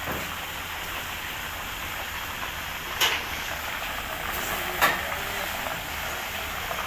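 Coated chicken thighs deep-frying in a wok of hot oil: a steady, dense sizzle and bubbling. Two sharp clicks stand out, about three and five seconds in.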